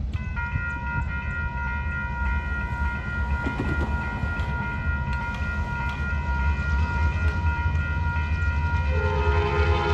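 A railroad grade-crossing warning bell switches on abruptly and rings steadily over the low rumble of an approaching train. Near the end a train horn starts to sound.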